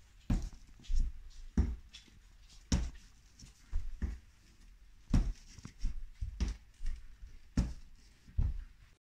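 Irregular dull thumps and knocks, roughly one a second, with faint rustling between them; they cut off abruptly near the end.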